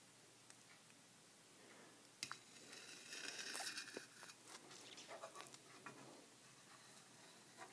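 Faint sounds of a metal spoon skimming cream off milk in a pan: a light click about two seconds in, then a couple of seconds of soft wet scraping and small liquid sounds that fade out after the middle.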